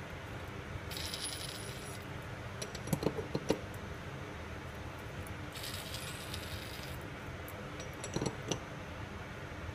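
Small metal parts of a wireline conveyance wheel, its hub halves and crossover, clinking against each other as they are handled and fitted together. A few sharp clinks come about three seconds in and a few more near the end, over a steady background hiss.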